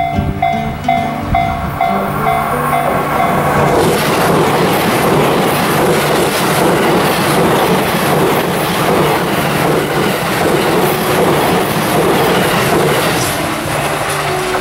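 Series E353 limited express electric train passing close by, its wheels clattering over the rail joints in a dense run of ticks. The rush of the train starts about four seconds in, over background music that fades under it and returns near the end.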